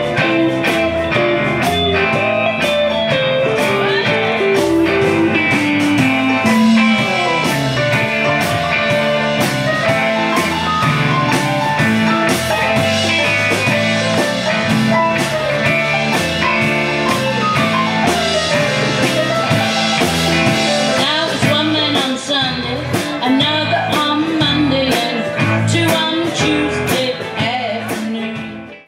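Live blues band playing, with guitar prominent; the music dips sharply in loudness at the very end.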